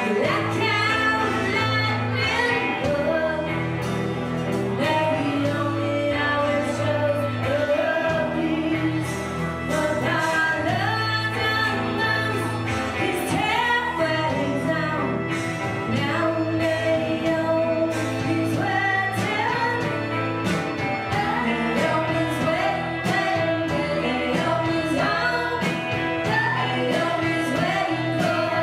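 Live indie rock band playing a song, electric guitars with a woman singing over them.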